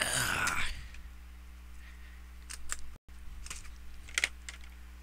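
Pen-style box opener scraping across the packing tape on a cardboard mailing box in one short, loud scrape at the start, without cutting through. A few light clicks and taps follow.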